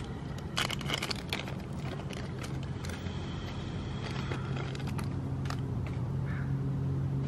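A quick cluster of light clicks and rattles from small carburetor parts being handled, about a second in, with a few more clicks later. Under it runs a steady low hum that grows louder in the second half.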